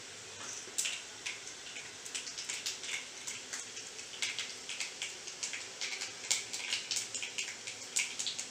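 Mustard seeds, with urad dal and cumin, popping and sizzling in hot oil in a kadai: irregular sharp crackles over a steady sizzle.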